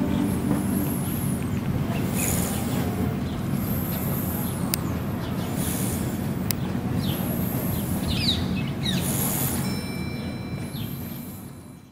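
Outdoor ambience: a steady low rumble under repeated high chirping, with a few bird calls, fading out at the end.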